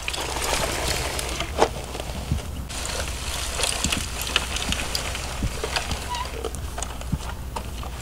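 Plastic Bruder toy dump truck and trailer being handled and pushed across grass: scattered light knocks and clicks over a steady hiss.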